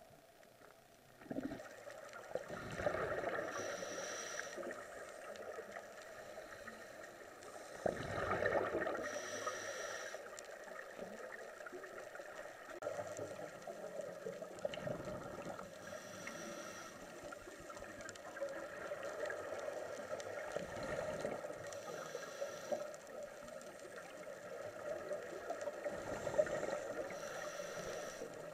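Scuba diver breathing through a regulator underwater: about five breaths, roughly six seconds apart, each a short hiss followed by a gurgling rush of exhaled bubbles, over a steady low hum.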